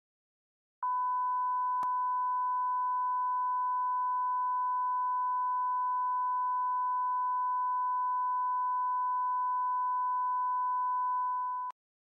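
Steady line-up test tone from a satellite TV test channel carrying colour bars: one unbroken electronic beep with a fainter higher tone above it. It starts about a second in and cuts off suddenly near the end, with a single click shortly after it starts.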